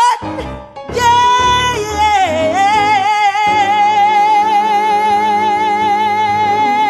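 A woman sings one long, high note with vibrato over the band's accompaniment. The note starts about a second in, dips briefly in pitch, then is held steady.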